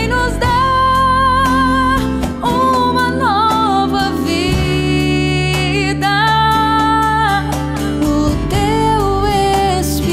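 Worship song: a voice holding long, slightly wavering notes over guitar and band accompaniment.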